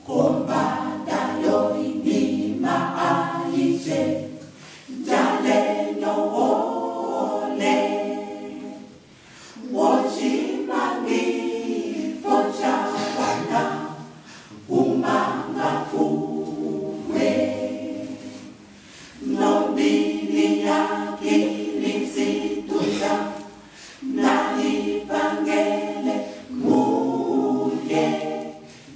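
Mixed-voice choir of young men and women singing a cappella in harmony, without instruments. The singing begins abruptly and moves in phrases of about five seconds, with a short breath between each.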